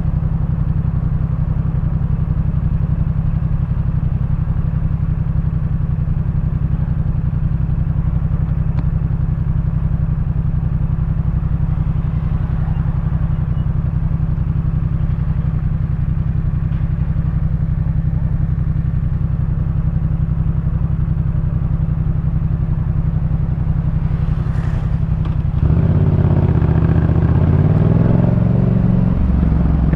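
2018 Yamaha MT-07's 689 cc parallel-twin engine breathing through a Jeskap K4 full exhaust, running steadily at low speed while riding. Near the end the throttle opens and it gets louder, its pitch shifting in steps.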